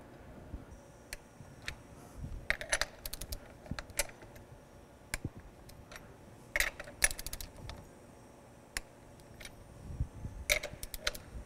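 Small metal clinks and taps of washers, nuts and a wrench on the bolted flange of a pump pulsation dampener's metal housing as the nuts are fitted, coming in scattered clusters of sharp clicks.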